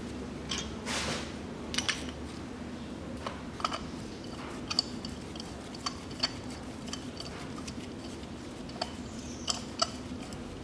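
Scattered sharp metallic clicks and clinks, irregularly spaced, from a socket extension and wrench being worked in a spark-plug well while a new plug is fitted and tightened. A brief rustle comes about a second in, over a steady low hum.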